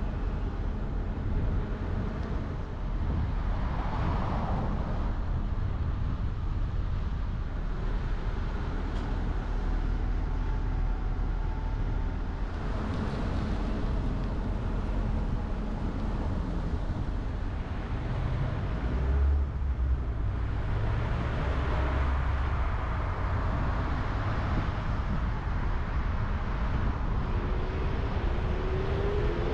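Steady road and traffic noise from driving on city streets, a low rumble with other vehicles swelling past now and then. Near the end an engine note rises as a vehicle accelerates.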